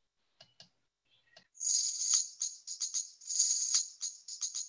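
Music made of a rapid, rhythmic shaker pattern of short, high rattling strokes. It starts about a second and a half in, after a few faint clicks.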